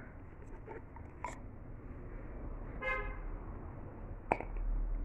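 Small plastic dinosaur counters clicking against plastic sorting cups: a faint click about a second in and a sharper one a little after four seconds. About three seconds in comes a brief steady pitched tone, over a low steady hum.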